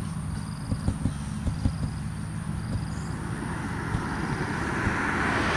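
A road vehicle approaching, its tyre and engine noise growing steadily louder through the second half, over a low steady hum and low thumps from wind on the microphone.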